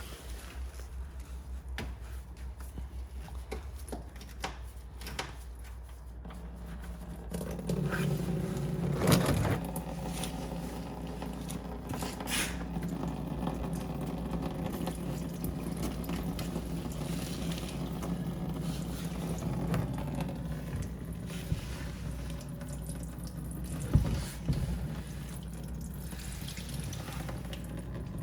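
Engine coolant running out of a truck's radiator drain port into a catch container: a steady pour that gets louder about seven seconds in. A few knocks sound over it.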